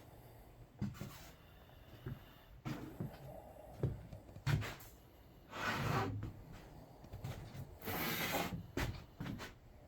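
Scattered knocks and thumps of things being handled, with two longer scraping or rubbing sounds, one about halfway through and one near the end.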